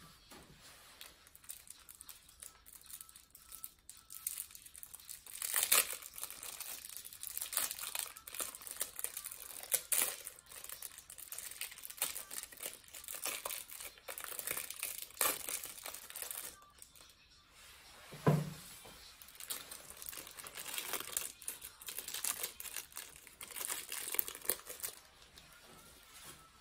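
Clear plastic wrapper of a mame daifuku crinkling and tearing as it is handled and opened, in irregular crackles throughout. One dull thump about two-thirds of the way through.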